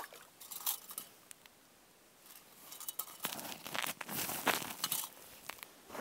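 Crunching and rustling close to the microphone as snow and fishing gear are handled on the ice: a few scattered crunches in the first second, then a dense run of them from about two seconds in until shortly before the end.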